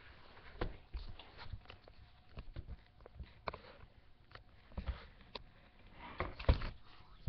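A long-haired ginger-and-white cat sniffing at and rubbing against a webcam: scattered soft knocks and rustles on the microphone, with the loudest bumps about six and a half seconds in as its fur presses over the camera.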